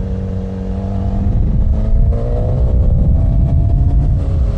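Suzuki GSX-R ("Gixxer") sport bike engine, heard from the rider's helmet. It runs steadily at first, then revs up and pulls harder about a second and a half in as the bike accelerates away, with wind rumble on the microphone underneath.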